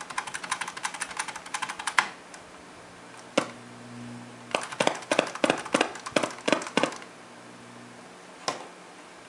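Biamp 601E mixer's channel pad switch being pushed in and out rapidly to scrub its dirty contacts: a fast run of clicks and crackle for about two seconds, a single click, then another fast run in the middle and one last click near the end. A low mains hum comes up through the mixer for a few seconds in the middle.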